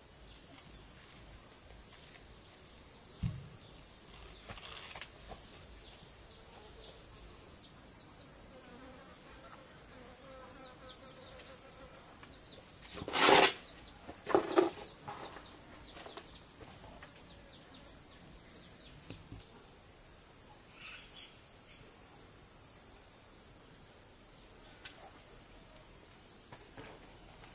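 A steady, high-pitched insect chorus, with two sharp knocks a little over a second apart about halfway through, louder than anything else.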